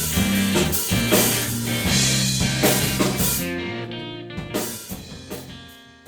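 Electric guitar, electric bass and drum kit built from Noto hiba wood playing together. About three and a half seconds in the drums and cymbals drop out, and the guitar and bass notes ring on and fade away near the end.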